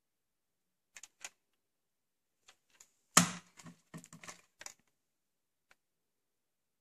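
Plastic clicks and knocks from VHS tape cases being handled: two light clicks, then a sharp knock about three seconds in followed by a quick run of rattling clicks, and one faint click near the end.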